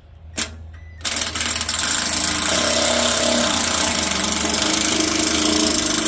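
Cordless power driver running for about five seconds, starting about a second in, with a fast rattling buzz as it drives a headlight trim-ring screw home.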